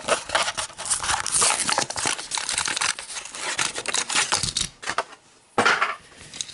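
Clear plastic blister of a carded toy car being torn and crinkled open by hand, the stiff plastic crackling and snapping as it is pulled away from the cardboard backing. It goes briefly quiet, then one more short crackle near the end.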